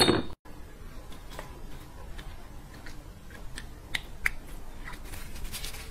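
Close-up eating sounds of beef bone marrow: a short loud mouth sound at the start that cuts off abruptly, then scattered small wet clicks and smacks from the mouth and the marrow being worked off the bone.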